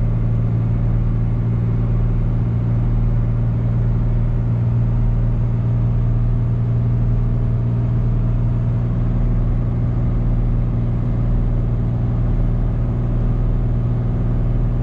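Ram 3500's diesel engine pulling hard under a heavy towing load up a long steep grade in 4th gear, a steady, unchanging drone heard from inside the cab as the truck chugs along holding its speed.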